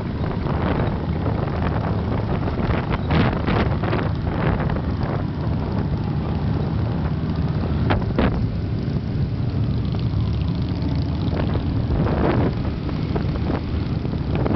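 Motorcycle engine running steadily at road speed, with wind buffeting the microphone in several short gusts.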